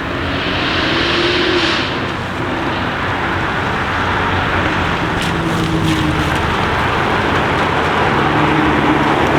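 Jaguar F-Type V8 R's supercharged 5.0-litre V8 running loud at a fairly steady pitch, with a few sharp exhaust crackles about five to six seconds in.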